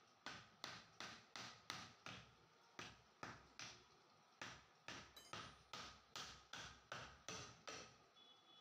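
A hammer knocking on the housing of a 2 HP single-phase clutch motor while it is being taken apart: a steady series of about twenty sharp knocks, roughly three a second, with a short break midway.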